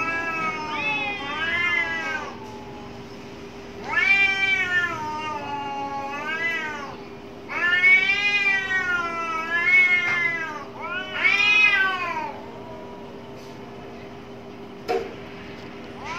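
Domestic cats yowling at each other in a territorial standoff: four long, wavering yowls that rise and fall in pitch over the first twelve seconds or so, then a quieter stretch with a single click near the end. A faint steady hum runs underneath.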